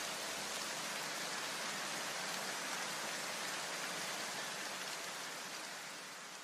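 Steady rain-like hiss of white noise, a noise wash left in the electronic background music track as the beat drops out, fading away near the end.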